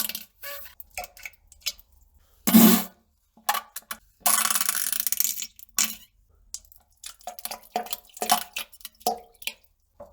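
A run of fart and toilet plopping sounds: short bursts and clicks, one louder short burst, then a longer spluttering burst lasting about a second and a half.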